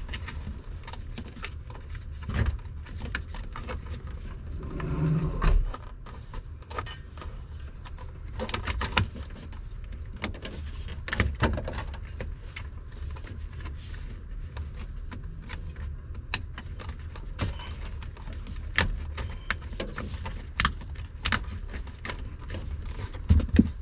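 Irregular sharp clicks and snips of wire cutters and handling of wires, as the truck's wire ends are cut and trimmed ready for soldering, over a steady low rumble.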